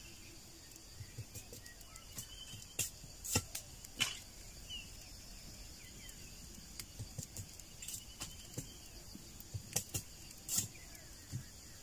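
Bamboo being split and trimmed with a knife: scattered sharp cracks and taps, the loudest a few seconds in and again near the end, over a faint steady high hiss.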